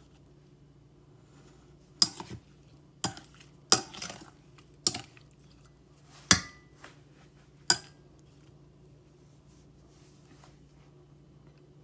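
Metal spoon clinking against a stainless steel bowl of mixed berries: six sharp, ringing clinks spread over about six seconds, over a faint low hum.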